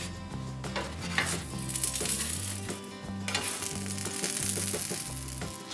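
A wooden spatula scraping in a nonstick frying pan as cooked flatbreads are lifted out, with a sizzling hiss that grows louder from about two seconds in. Background music with a bass line plays underneath.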